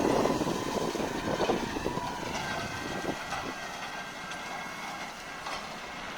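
Tractor running with its PTO-driven hay rake turning, a steady mechanical rumble and clatter that grows gradually fainter as the machine moves away.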